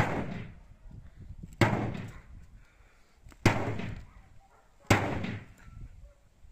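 A cleaver forged from bearing steel chopping four times into black plastic sheeting, each blow a sudden sharp hit that fades out over about half a second.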